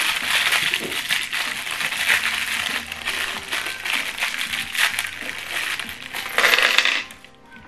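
Small clear plastic bag of metal screws crinkling, with the screws clinking inside it as it is handled. There is a louder rustle shortly before it stops near the end.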